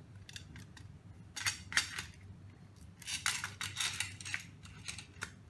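Clicking and metallic clinking of a 1/14 scale RC dump truck chassis being lifted and handled, in two bursts of rattling knocks about a second and a half apart, over a faint low hum.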